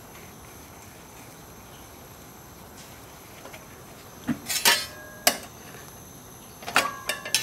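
Metal utensils clinking and tapping against each other, several sharp knocks that ring briefly, starting about four seconds in and loudest near the end, over a faint steady hiss.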